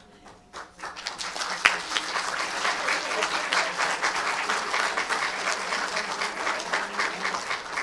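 A small audience applauding with their hands, dense clapping that builds up within the first second and then goes on steadily.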